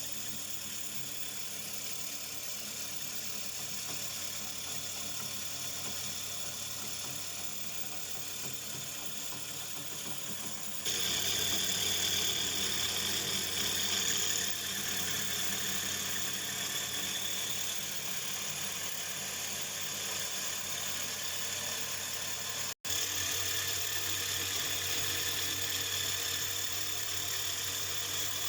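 Meccano model combine harvester running under its own motor drive, a steady mechanical whine and hum of motor and gearing with its fans and elevators turning. It grows louder about eleven seconds in and cuts out for an instant near the end.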